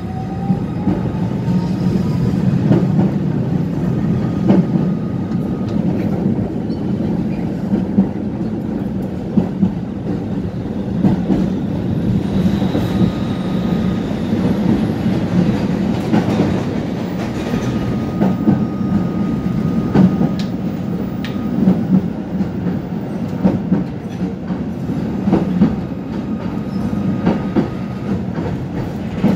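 Tatra-Yug K1M8 tram running along the track, heard from the passenger saloon: a steady rumble of wheels on rail with occasional sharp clicks over rail joints. A whine rises in pitch over the first two seconds as it picks up speed.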